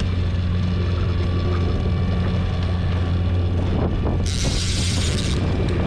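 Boat engine running steadily at trolling speed, with a fishing reel's drag buzzing for about a second some four seconds in as the hooked fish takes line.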